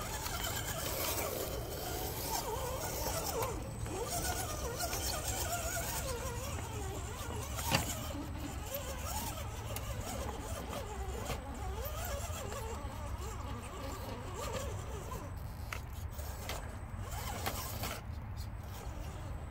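Axial SCX10 RC crawler's electric motor and gears whining, the pitch wavering up and down as the throttle is worked while it crawls over rocks. A single sharp knock about eight seconds in, with a steady low rumble underneath.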